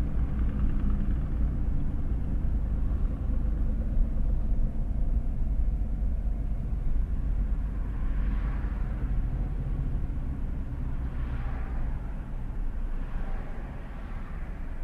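Steady low vehicle rumble with a continuous engine hum, easing slightly toward the end.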